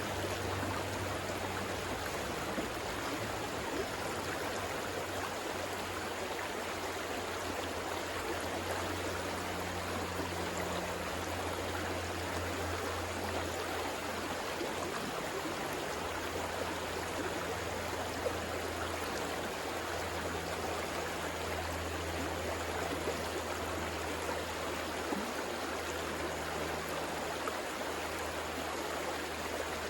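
River water flowing steadily, an even rushing with a low rumble beneath.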